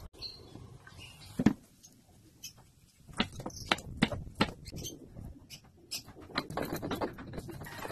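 Kitchen knife chopping green beans on a wooden cutting board, sharp taps about two a second, followed by a stone pestle knocking and grinding in a stone mortar.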